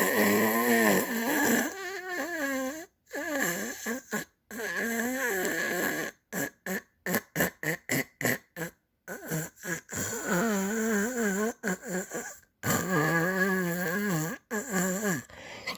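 Snoring mixed with groaning sounds, wavering up and down in pitch and broken by sudden short silences. In the middle comes a run of quick, short snorts, about two or three a second.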